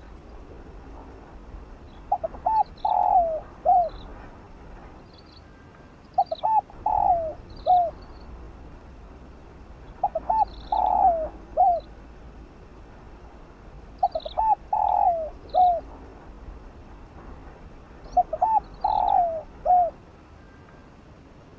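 Spotted dove cooing its song five times, about every four seconds: each phrase is a couple of quick short notes, a longer falling coo and a short closing note.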